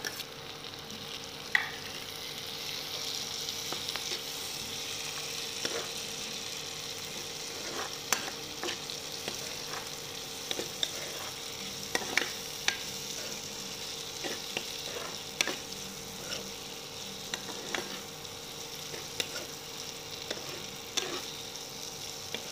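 Chopped onions and tomatoes sizzling in hot oil in a non-stick pan, stirred with a metal spoon that clicks and scrapes against the pan every second or so.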